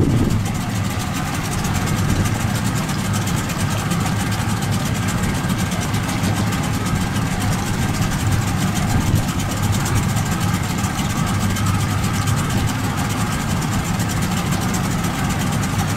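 Boat engine running steadily at an even pitch, a low drone with no change in speed.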